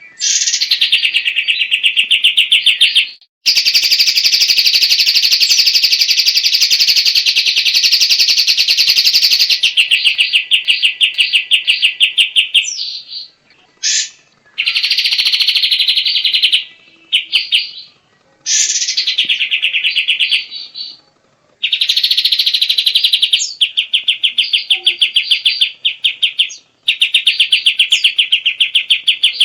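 A kapas tembak songbird singing: long runs of fast, evenly repeated chattering notes, broken by short pauses and a few quick upward-sweeping notes.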